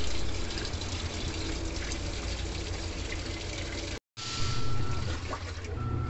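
Panasonic top-load washing machine agitating a load of sneakers in water: steady churning and sloshing of water over a low motor hum, with a brief break about four seconds in.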